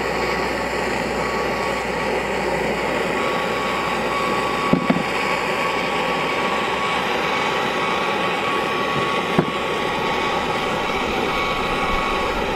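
Oxy-fuel torch flame hissing steadily, with two short knocks about five and nine seconds in.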